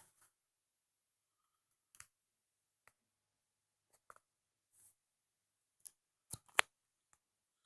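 A few faint, scattered clicks and taps with near silence between them; the loudest two come close together near the end.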